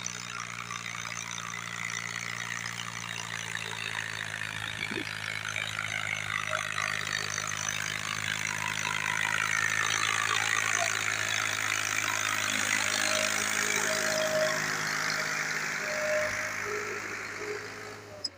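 Small tractor's diesel engine running under load as it pulls a loaded trailer of earth and stones up a dirt slope, getting louder as it comes close and passes, then fading.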